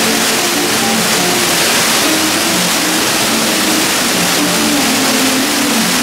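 Steady rushing of an artificial waterfall cascading off a stone wall into a pool, with music of low held notes running underneath.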